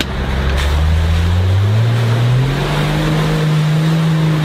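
Engine of a red Toyota 4x4 on oversized mud tyres revving up smoothly over about two seconds and then held at a steady high pitch as it drives through mud, with a rushing noise under it.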